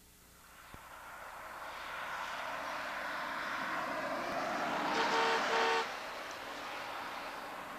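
Road vehicle on a paved road, its road noise swelling steadily, with a horn giving two short toots about five seconds in. The noise drops off sharply just after the toots.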